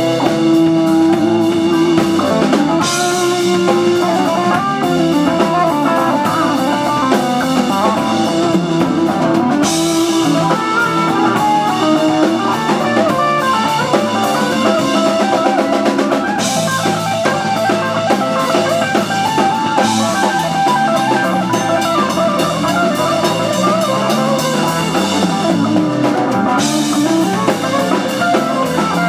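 Live instrumental blues-rock jam: electric guitar lead over electric bass and a drum kit, with long stretches of cymbal wash.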